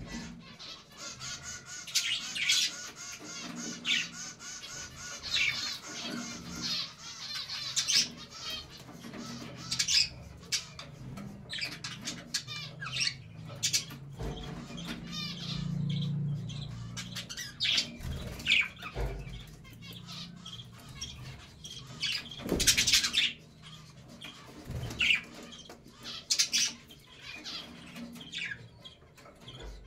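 A flock of budgerigars chattering: a fast, warbling chatter for the first several seconds, then scattered sharp chirps and squawks.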